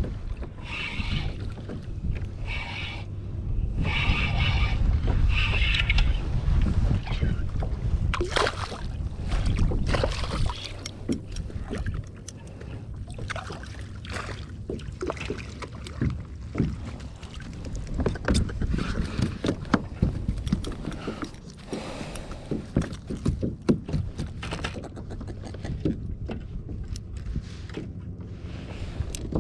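Kayak at sea: wind buffeting the microphone and water against the plastic hull, loudest in the first seven seconds. After that it is quieter, with scattered clicks and knocks from handling fishing rod and reel gear.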